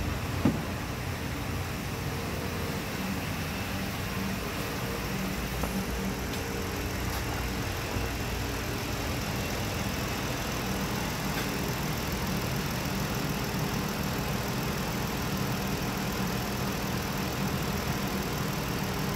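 Chrysler 2.7-litre DOHC 24-valve V6 idling steadily, with one short knock about half a second in.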